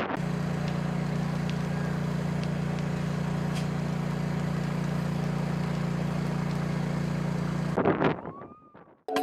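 An engine running steadily with an even, unchanging hum, starting and stopping abruptly; a short noisy rush follows near the end.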